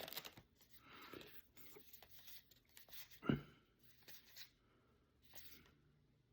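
Trading cards being handled and slid through the hands, with faint paper-on-paper rustles, and one knock about three seconds in.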